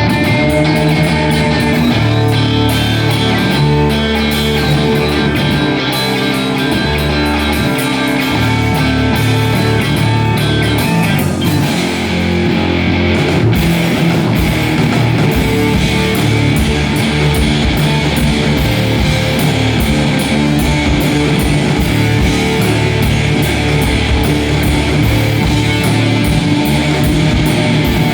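Rock band playing at full volume: electric guitar to the fore over bass and drums, with the arrangement shifting to a new section about twelve seconds in.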